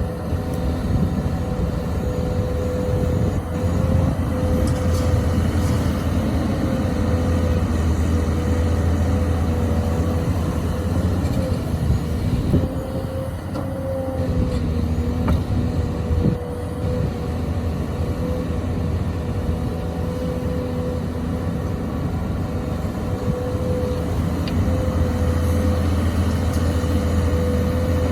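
XCMG XE215C excavator's diesel engine running under load as it digs, a steady low drone with a steady higher tone above it that drops out now and then, and a few faint knocks partway through.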